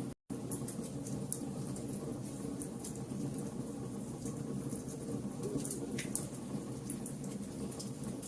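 Wood fire burning with a steady low rumble and irregular sharp crackles and pops. The sound cuts out for a split second just after the start.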